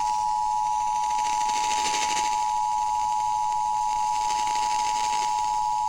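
Emergency Alert System attention signal: the steady two-tone alert tone held without a break, with faint radio hiss beneath it. It announces the tornado warning that is read next.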